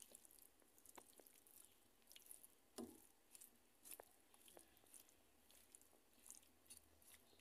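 Near silence, with faint, scattered crackles from a beef and broccoli stir fry in the pan and a soft knock about three seconds in.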